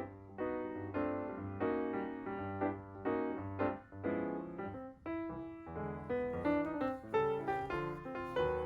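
Background piano music: a steady run of chords over a bass line.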